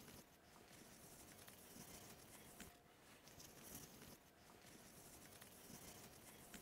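Faint rubbing of a disposable cloth spreading Danish oil over a laminated-wood table surface, in repeated wiping strokes along the grain.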